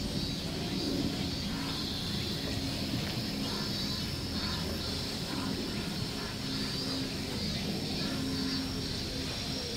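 Steady outdoor background noise: a constant low rumble under a continuous high hiss, with no clear event standing out.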